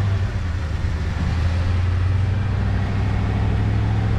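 Steady drone of a road vehicle driving at speed, heard from inside the cabin: a low engine and drivetrain hum over tyre and road noise.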